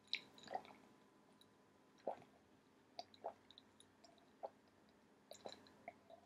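A person gulping down a drink from a glass: about half a dozen faint swallows at uneven intervals.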